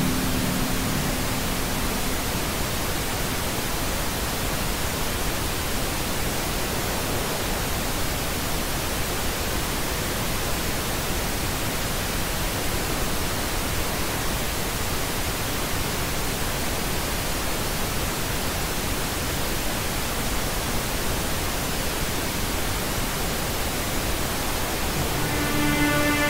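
Steady hiss of static noise at an even level. Held music tones fade out in the first couple of seconds, and new sustained tones come in near the end.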